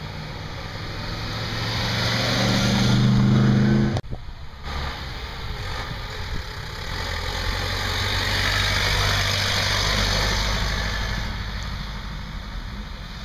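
Vintage cars driving past one after another: first a 1950s BMW saloon's engine running, growing louder and peaking as it passes about three seconds in, then, after a sudden cut, another old car's engine hum with tyre noise that swells as it drives by and fades as it goes away.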